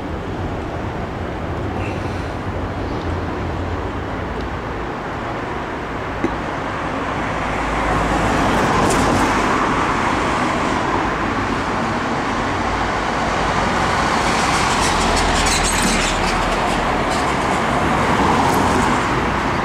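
Road traffic on a busy street: a steady rush of passing vehicles that grows louder about eight seconds in and swells again near the end.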